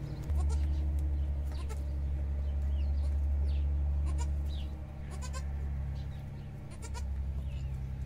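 A nanny goat making low, steady calls to her newborn kid as she licks it, loudest in the first half and fading about halfway through, with a few faint clicks over it.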